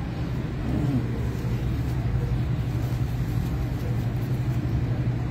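A steady low mechanical hum, like a motor or machine running continuously.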